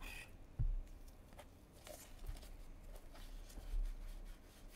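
Faint rustling and light clicks of gloved hands sliding and flipping through a stack of cardboard trading cards, with a few soft low bumps, the clearest about half a second in.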